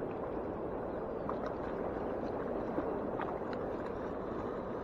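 Steady rushing of turbulent river water in the outflow below a hydroelectric dam's powerhouse, with a few faint ticks.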